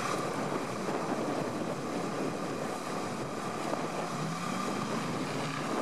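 GAZ-66 truck's engine running under load as the bogged truck tries to back out of deep mud, with wind on the microphone; the engine note rises a little about four seconds in.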